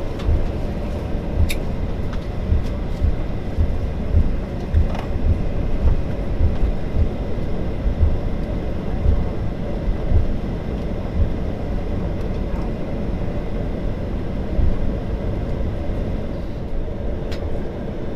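Boeing 737-800's CFM56-7B engines at taxi idle, heard from inside the cabin over the wing, with an uneven low rumble and bumping of the airliner rolling along the taxiway.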